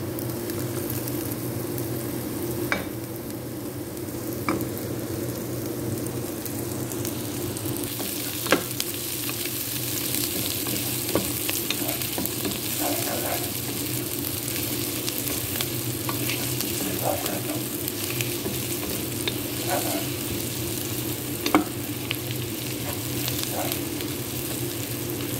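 Sliced onions and garlic sizzling in hot oil in a nonstick pan as they are browned, with a wooden spatula stirring and scraping. Now and then the spatula knocks sharply against the pan. The sizzle grows stronger after about seven seconds.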